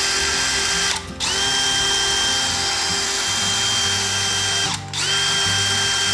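Stanley FatMax SBD715 20V brushless cordless hammer drill running free with no load, a steady, smooth whine. The trigger is released briefly about a second in and again near five seconds, and the motor spins back up each time with a rising whine.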